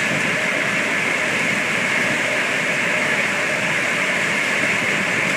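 Chip flinger running, a loud, steady noise with no breaks or rhythm as it loads wood chips into a railroad hopper car.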